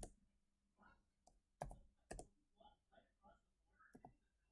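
Faint computer keyboard typing and mouse clicks: about a dozen separate short keystrokes, with a quicker run of them in the middle, as a CAD command and its options are keyed in.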